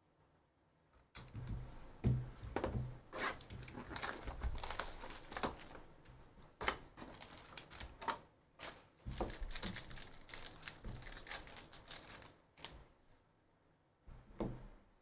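Foil trading-card pack wrappers crinkling and tearing as Bowman University Chrome basketball packs are handled and ripped open. The crackling starts about a second in and dies away shortly before the end.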